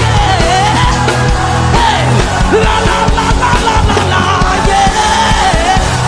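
Live gospel worship band playing loudly, with drum hits and a singer's voice holding and sliding through a melodic line over the music.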